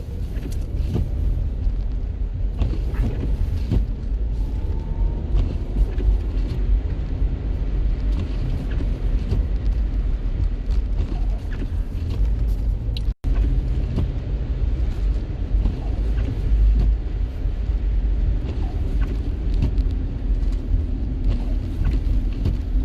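Wind buffeting an outdoor microphone: an uneven low rumble that runs on, briefly cutting out about thirteen seconds in.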